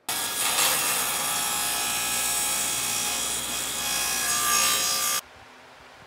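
Power saw cutting through wood, running steadily with a whining tone, then stopping abruptly about five seconds in.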